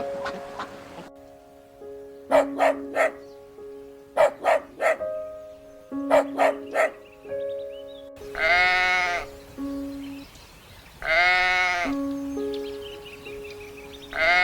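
Two long bleats from sheep or goats in the second half, each about a second, with a third beginning at the very end, over background music of steady held notes. In the first half there are three quick groups of sharp clicks.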